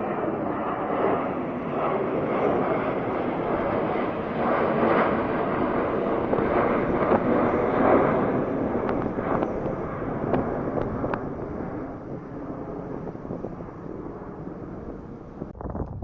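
Airbus A321 jet airliner taking off, its turbofan engines giving a loud, steady rushing roar that peaks about halfway and then fades as the plane climbs away.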